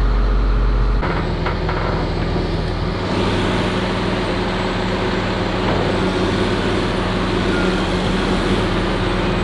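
Large excavator's diesel engine running steadily at a constant speed. The sound shifts slightly about a second in and again about three seconds in, with more hiss after the second change.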